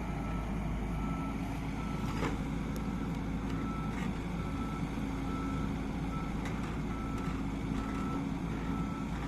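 Heavy machine's reversing alarm beeping about one and a half times a second over a steady diesel engine running, with a couple of brief knocks.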